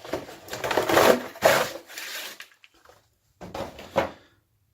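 A damaged box being opened by hand, its packaging rubbing and scraping in several bursts, then after a short pause one more scrape ending in a sharp click.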